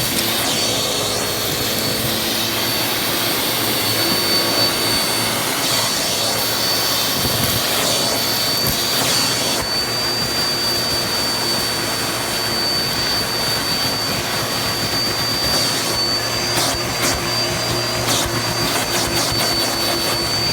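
Upright household vacuum cleaner running steadily, its motor giving a constant high-pitched whine over a steady rush of air.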